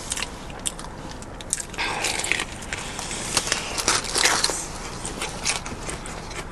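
Close-up crunching as a piece of Popeyes fried chicken is bitten and chewed, its crispy breading crackling. A run of crunches comes from about two to four and a half seconds in and is the loudest stretch.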